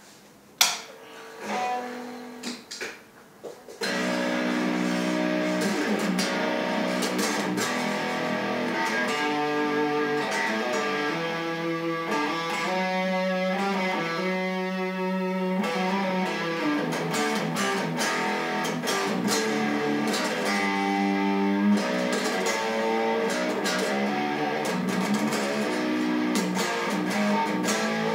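Chapman ML7 seven-string electric guitar played through an amplifier: a click and a few quiet notes, then about four seconds in, steady loud chords and riffs. The tone is bright, which the player puts down to the amp having too many highs or too much presence.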